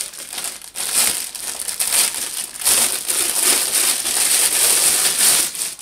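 Clear plastic bag crinkling and rustling loudly as it is worked open off a plush toy, in a near-continuous run of crackles that grows heavier in the second half and stops abruptly at the end.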